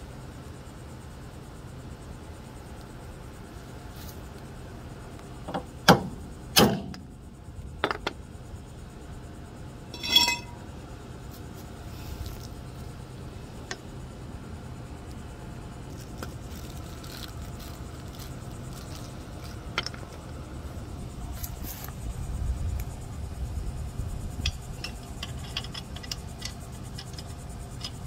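Metal hand-work on a car's rear wheel hub and its wheel studs. There are a few sharp metal knocks about six seconds in, a single ringing metal clink around ten seconds, and light clicking and tapping near the end.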